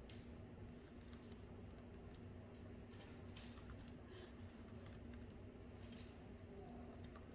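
Faint typing on a laptop keyboard: soft, irregular key clicks over a steady low hum.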